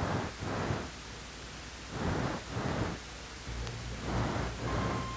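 Hiss and low hum of an old tape soundtrack, swelling and fading every couple of seconds. Near the end comes a short steady beep, the cue to advance to the next slide.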